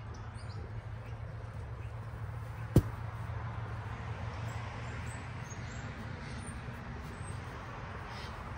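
A steady low hum runs throughout, with a single sharp knock about three seconds in.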